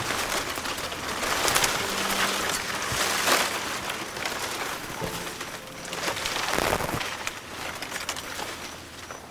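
Stiff saw palmetto fronds rustling and scraping as a person pushes through a dense thicket, with louder swishes now and then. The rustling fades toward the end.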